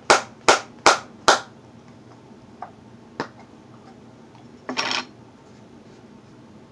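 A tin of Grizzly Wintergreen dip being packed: a quick run of sharp taps, about two and a half a second, as the can is flicked against the fingers. A few faint clicks follow, then a short rustling scrape a little before the end.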